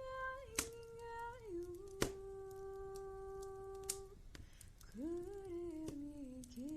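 A slow folk lullaby hummed in long held notes that glide down from one pitch to the next, pausing briefly and then starting again. A few sharp crackles from a wood fire in a fireplace pop through it.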